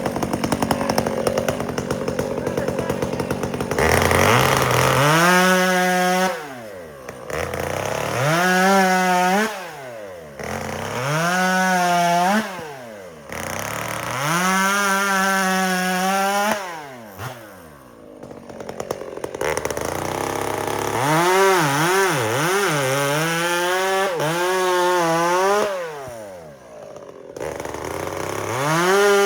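Two-stroke chainsaw bucking firewood. The throttle is run up to full revs and held for a second or two, then drops back, over and over.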